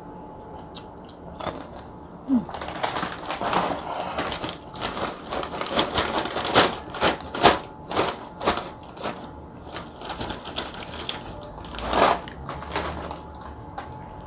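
Crinkling of a plastic snack bag and dry crackers clattering out of it onto a plate: a quick, uneven run of sharp crackly clicks, thickest in the middle, with one louder crackle near the end.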